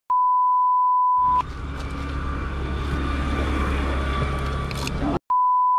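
Two censor bleeps, each a steady 1 kHz tone lasting about a second, masking swear words; between them a low rumble runs for about four seconds.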